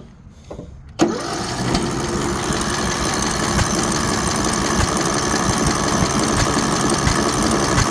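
Briggs and Stratton 18 hp mower engine being cranked over by its starter, starting suddenly about a second in and turning steadily without catching. The engine turns over but won't run, a no-start the owner later traced to an exhaust valve seat lifted out of the head.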